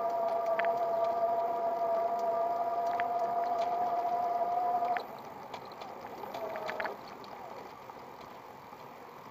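Electric bicycle's 250 W hub motor whining steadily under power, the pitch creeping up slightly before the whine drops away about five seconds in as power is cut. It comes back briefly near seven seconds. Small knocks from the wheels on the path come through at times.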